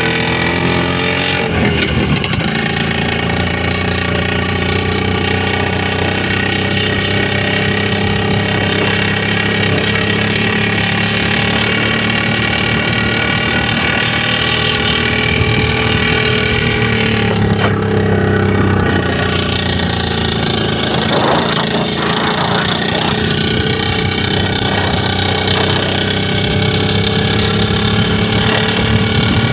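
IZh two-stroke motorcycle engine running steadily, shifting in pitch a couple of times after the middle.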